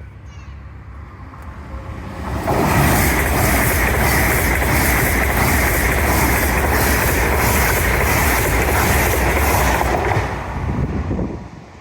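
A Great Western Railway Class 800 passing through the level crossing at speed. It sweeps in suddenly about two and a half seconds in, runs loud and steady with a regular clatter of wheels over the rails, and dies away near the end.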